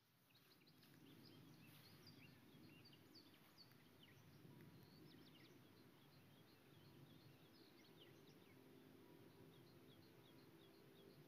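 Faint birds chirping, many short rapid calls, over a low steady background hum.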